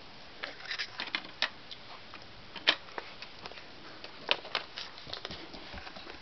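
Irregular light clicks and taps, a dozen or so, over faint background hiss; the sharpest tap comes a little under halfway through.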